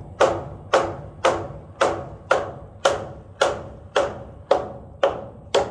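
Hammer driving nails into a metal joist hanger: eleven evenly spaced strikes, about two a second, each with a short metallic ring.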